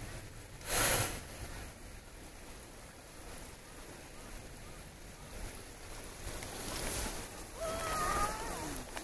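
Shallow stream flowing steadily, with wind rumbling on the microphone and a stronger gust about a second in. A brief faint call with gliding pitch sounds near the end.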